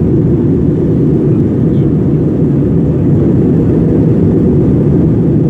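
Steady roar of a jet airliner's engines and rushing air, heard inside the passenger cabin in flight.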